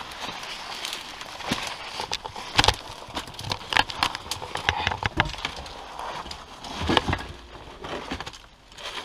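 Footsteps crunching and scraping over loose stone rubble and debris, an irregular run of steps with a couple of louder knocks of stone about two and a half and seven seconds in.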